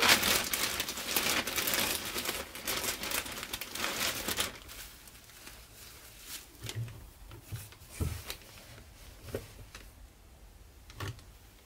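Plastic carrier bag and disposable diapers rustling and crinkling as diapers are pulled out of the bag, busiest for about the first four seconds, then a few scattered soft rustles and light knocks.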